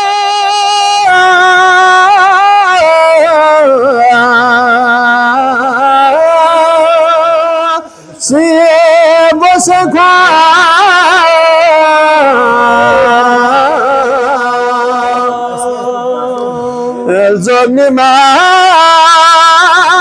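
A man singing a naat solo and unaccompanied, in long held notes with a strong vibrato, breaking off briefly about eight seconds in.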